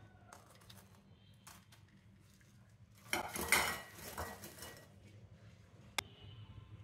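Light clatter of fried garelu tumbling into a ceramic bowl about three seconds in, then a single sharp metallic clink near the end as a steel spoon strikes a steel pot.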